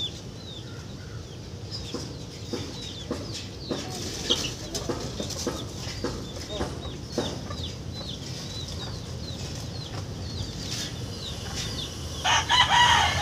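A rooster crows loudly near the end, a long call that slides down in pitch. Before it, short high chirps of small birds and a few scattered light knocks.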